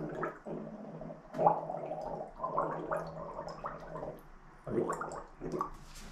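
A woman gargling salt water with her head tilted back, as a sore-throat remedy: a long gargle of about three seconds, then a few short ones near the end.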